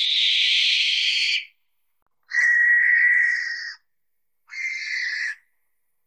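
Owl giving three harsh, hissing screech calls, each one to one and a half seconds long; the last is shorter and quieter.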